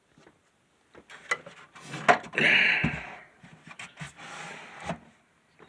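Handling noise: scattered knocks, clicks and rubbing scrapes, with a longer rasping rub near the middle, as the plastic box fan is shifted and turned.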